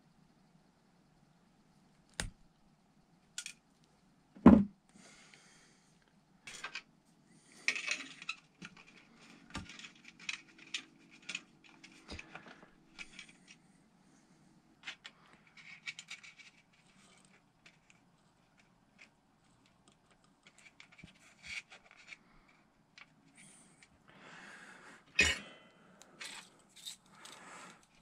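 Scattered clicks, snips and handling noises of hand-tool work at a table: wire strippers baring the ends of an LED strip's leads, and tools being put down and picked up. A sharp knock comes about four and a half seconds in and another near the end.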